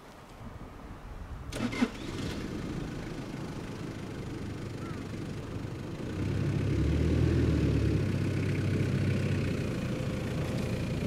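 Toyota Hiace van's engine starting about a second and a half in, then running steadily, growing louder about six seconds in as the van pulls away.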